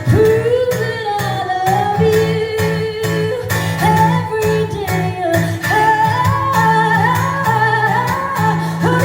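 Live band performance of a song: a woman sings the lead melody over guitar and a steady band accompaniment with regular percussive hits.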